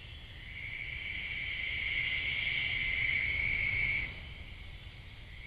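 Insects trilling: a steady high-pitched buzz that swells, then drops away about four seconds in, over a fainter continuous insect chorus.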